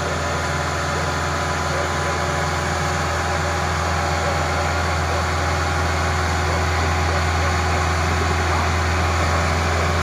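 Diesel engine of a Kubota crawler rice combine harvester running steadily with an even low hum while the machine creeps forward, growing slightly louder toward the end.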